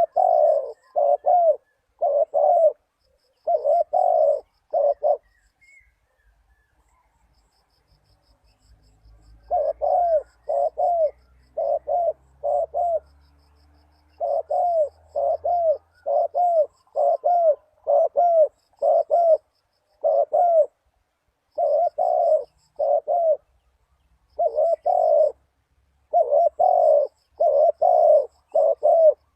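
Spotted dove cooing: strings of short, low coo notes in repeated phrases. One phrase, then a pause of about four seconds, then almost unbroken cooing.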